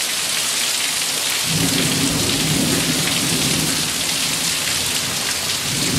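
Heavy rain pouring down steadily, with a low rumble coming in about a second and a half in and fading a few seconds later.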